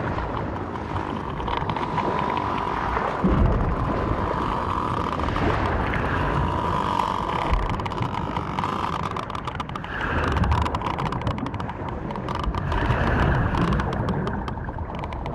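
Underwater sound of agitated sperm whales: dense, rapid trains of clicks over a rushing churn of water, with low thuds about three seconds in and again around ten seconds.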